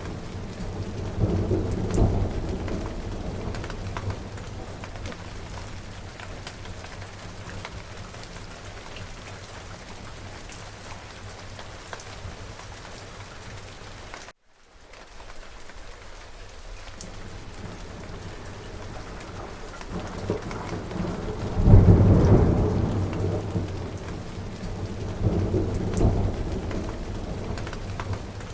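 Steady rain with rumbles of thunder: rolling thunder near the start, a loud clap about three quarters of the way through and another rumble soon after. The sound cuts out for an instant around the middle.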